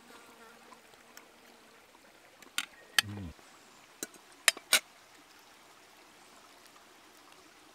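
A metal fork clicking sharply against an enamel camp plate a handful of times while picking flesh off a cooked flounder, three of the clicks close together near the middle. Under it runs the faint steady trickle of a small creek.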